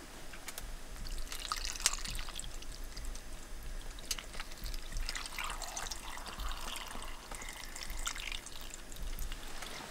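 Water poured from a plastic bottle into a pot heaped with raw vegetables, splashing and trickling over them.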